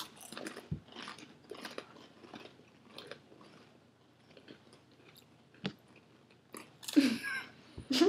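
People chewing and crunching dry crackers with mouths full, a run of faint, irregular crunches. A sharp click comes about two-thirds of the way through, and a short muffled vocal sound near the end.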